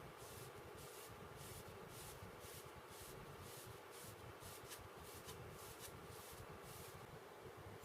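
Faint rhythmic abrasive strokes on a steel knife blade, about two to three a second, that stop near the end.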